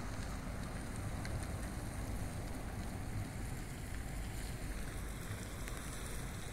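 Steady outdoor background noise: a low rumble under a soft hiss, with no distinct events.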